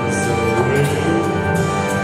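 A man singing a song into a microphone over musical accompaniment, holding long notes, with a steady beat about twice a second.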